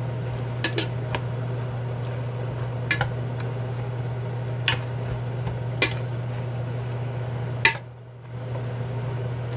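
Metal utensil knocking against a cooking pot every second or so as seaweed is stirred, over a steady low hum. A louder clank comes near the end.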